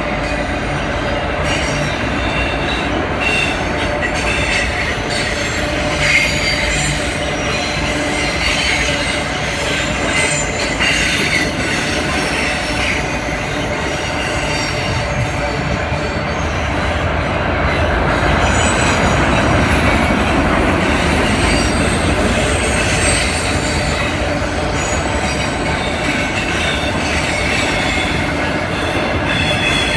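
Empty autorack freight cars rolling past, steel wheels running on the rails with a steady rumble and scattered high-pitched wheel squeal; it swells a little just past the middle.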